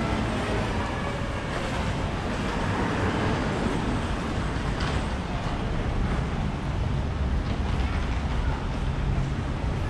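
Street traffic: a steady rumble of vehicle engines and road noise, with no pauses.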